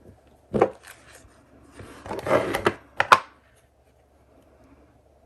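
Tabletop handling sounds: a few knocks and clicks, about a second of rustling, then two sharp clicks, as a craft stamp and ink pad are picked up and readied for stamping.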